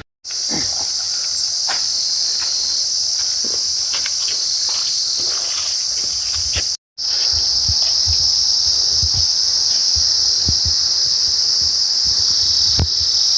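Insects singing in a loud, steady, high-pitched drone, with a second, higher note pulsing on and off about once a second in the first half. The sound cuts out briefly about seven seconds in.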